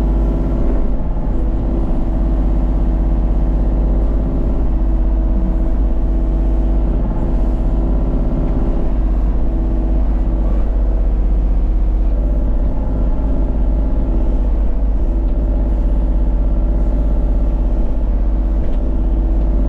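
Excavator's diesel engine running steadily, with a heavy low rumble.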